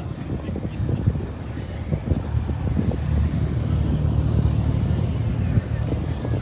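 Low rumble of a car engine idling, steadier in the second half, with wind buffeting the microphone.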